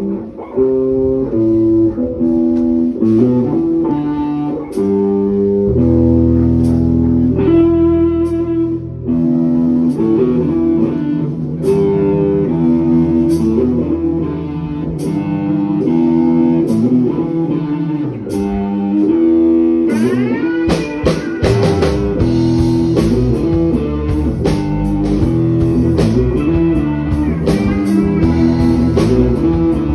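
Live electric blues band playing without vocals: an electric guitar riff, with bass notes coming in about six seconds in and drums growing busier about twenty seconds in.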